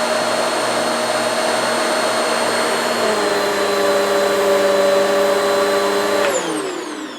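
Hoover Swivel XL Pet upright vacuum cleaner running steadily, working normally again with its beater brush no longer binding. Its motor hum shifts in pitch about three seconds in, and near the end the motor winds down with a falling whine.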